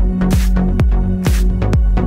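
Electronic dance music with a steady thumping kick drum about twice a second, a bright noisy hit about once a second, and a held bass note underneath.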